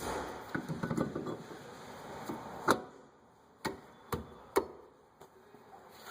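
Metal brake parts and hand tools being handled: a short stretch of scraping and rattling, then a few sharp metallic clicks, the first the loudest.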